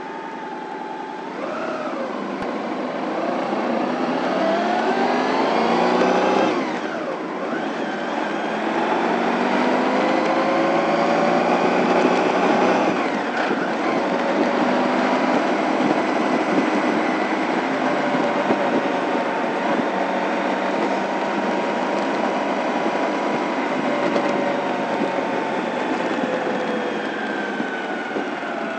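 Honda ST1100's V4 engine pulling away and accelerating, its pitch rising, dropping at a gear change about seven seconds in, rising again and dropping at a second shift about thirteen seconds in, then running at a steady cruising speed.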